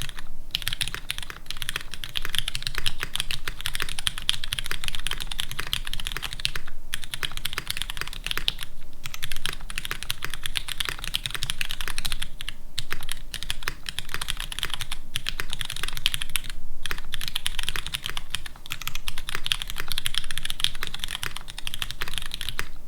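Fast continuous typing on a custom mechanical keyboard with lubed Cherry MX Brown tactile switches on an aluminium plate and GMK doubleshot keycaps, with an empty case. Rapid keystroke clacks, broken by a few brief pauses.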